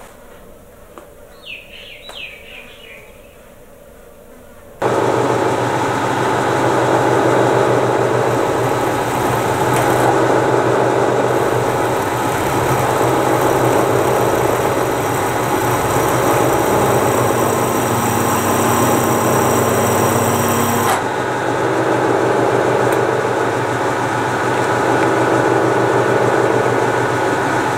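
Electric drill running steadily under load, its freshly sharpened HSS twist bit cutting into a metal block held in a vise. It starts suddenly about five seconds in, after a few seconds of quiet handling of the bit.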